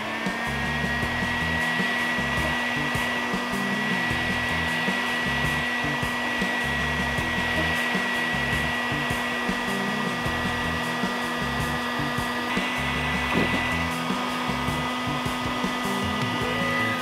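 Heat gun blowing hot air steadily, its fan motor giving a constant whine over the rush of air, while heating the solder of a motherboard PCI slot to free it.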